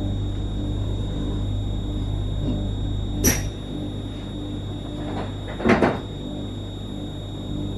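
Steady electrical hum inside a standing Newag 19WE electric multiple unit. About three seconds in there is a sharp click, and near six seconds a short cluster of knocks, typical of the passenger doors closing and locking before departure.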